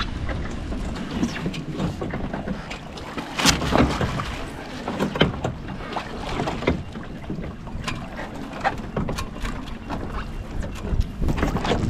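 Water lapping and splashing irregularly against the hull of a small sailing catamaran under way, with wind on the microphone.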